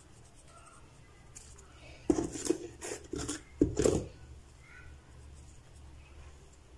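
Kitchen utensils knocking and tapping: a quick cluster of about five or six sharp taps between two and four seconds in, while spice is sprinkled over a bowl of dahi bhalle.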